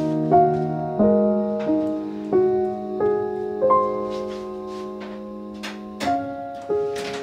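Background piano music: a slow melody of single notes, one every half second or so, over a low note held through most of it.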